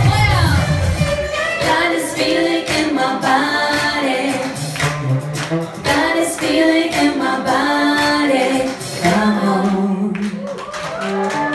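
A woman singing a song live with musical accompaniment; about a second in the heavy bass drops away and the voice carries on over lighter backing.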